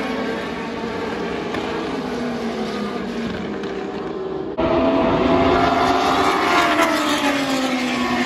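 Historic pre-1985 Formula 1 cars' racing engines, several overlapping engine notes at high revs as the field pulls away down the straight. About halfway through, the sound jumps louder and one engine's note falls in pitch as a car passes close by.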